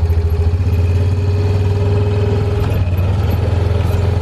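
Side-by-side utility vehicle's engine running steadily while driving: a constant low drone with a steady higher tone over it.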